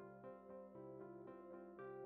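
Quiet instrumental background music: a gentle melody of steady notes that change every quarter to half second.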